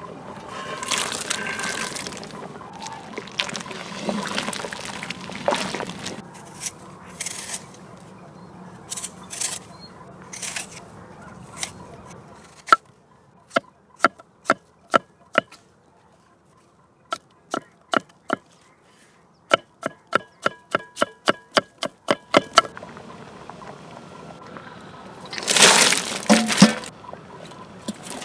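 Food preparation sounds: handling and liquid noises, then a run of sharp, evenly spaced knocks, about two or three a second for roughly ten seconds, then a louder noisy stretch near the end.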